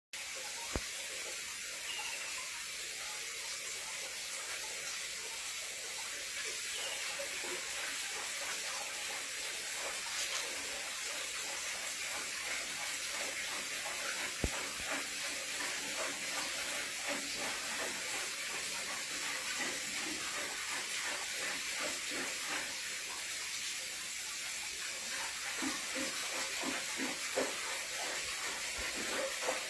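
Steady hiss of moving water in a fish basin, with small irregular splashes that grow busier near the end.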